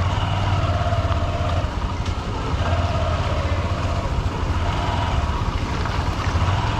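Honda SP125's 124 cc single-cylinder four-stroke engine running steadily at low revs, picked up by a helmet-mounted camera, amid the surrounding road traffic noise.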